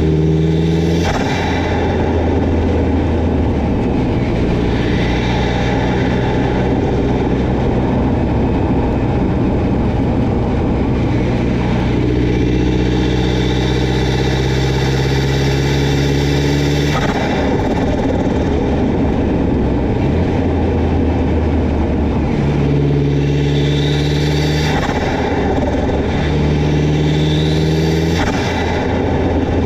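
Turbocharged DSM 4G63 four-cylinder engine heard from the engine bay, pulling hard several times with its pitch climbing under boost. Each pull cuts off abruptly as the throttle snaps shut, the boost released as turbo flutter or blow-off valve venting.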